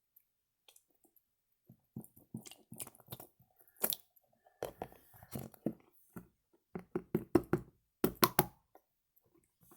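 Slime being squished and handled in a slime toy: irregular wet squelches and small clicks, starting about two seconds in and loudest in a quick cluster about eight seconds in.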